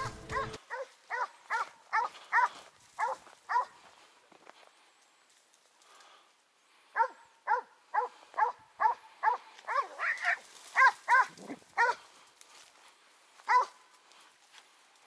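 Hunting dog barking in short, quick barks, about two a second, with a pause of about three seconds midway.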